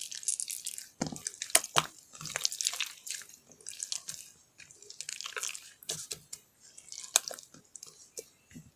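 An irregular run of sharp clicks and short crackling, hissing noises, with a few duller knocks.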